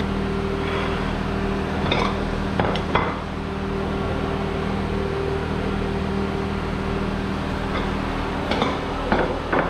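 Kitchen knife and ceramic plates knocking and clinking as watermelon is sliced and laid out on plates: a handful of sharp knocks, two bunched near the start and two near the end. A steady low machine hum runs underneath.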